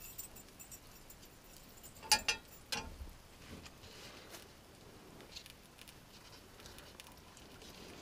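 A few sharp clicks about two seconds in, from a metal spatula set down in a skillet, then soft rustling and patting of a tortilla wrap being folded around scrambled eggs by hand.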